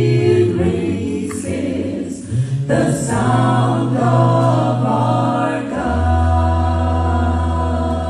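Mixed a cappella vocal group singing a gospel song in close harmony through microphones, with no instruments. About six seconds in, a deep bass voice comes in on a low note and holds it under the others.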